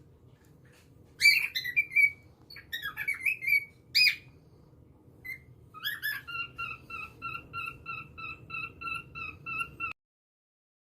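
Cockatiel calling: several sharp chirps, then from about six seconds a quick run of repeated whistled notes, about three or four a second, which cuts off suddenly near the end.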